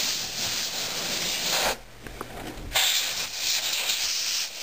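Can of compressed air spraying dust out of a computer case in two long bursts: one of about a second and a half, a short pause, then another of nearly two seconds.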